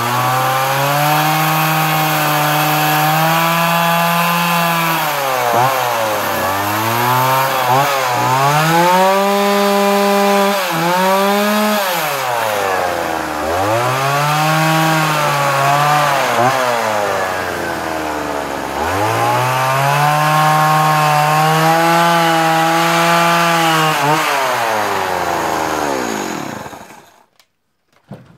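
Stihl MS170 chainsaw, a small two-stroke, carving into a wooden post: the engine revs up under the cut and drops back to idle several times, then is shut off near the end.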